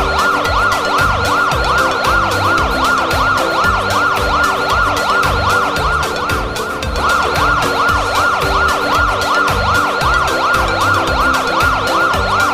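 An emergency-vehicle siren wailing in quick rising-and-falling sweeps, about three a second, over music with a steady beat.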